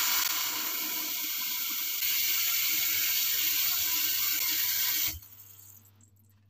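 Kitchen tap running a steady stream of water into a large jar of cracked green olives, refilling their soaking water to draw out the bitterness; the tap shuts off suddenly about five seconds in.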